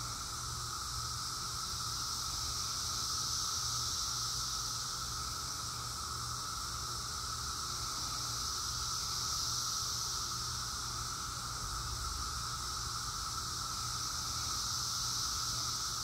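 Chorus of cicadas, a steady high buzz over a lower humming band, swelling and easing in slow waves every few seconds.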